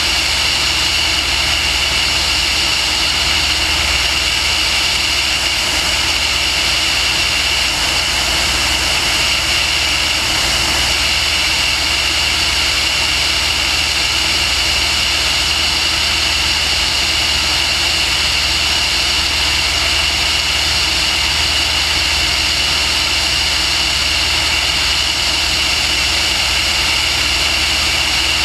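Steady, unchanging motor and propeller noise from the aircraft carrying the camera, with a high whine and a low rumble of wind on the microphone.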